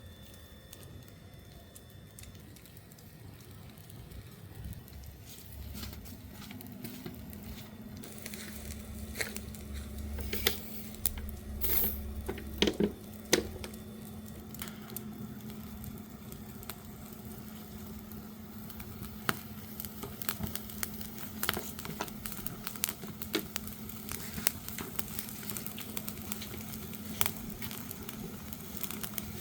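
Wood fire crackling and sizzling, with scattered sharp pops that pick up after the first several seconds. The loudest pops come in a cluster about ten to thirteen seconds in.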